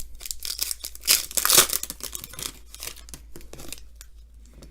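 A trading-card pack wrapper being torn open and crinkled, loudest about a second in, then dying down to light rustling of the wrapper and cards.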